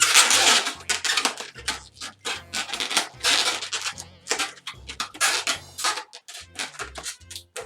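Inflated latex twisting balloon being looped and twisted by hand, the rubber rubbing and scraping in a run of short, uneven bursts. Background music with a low bass line plays underneath.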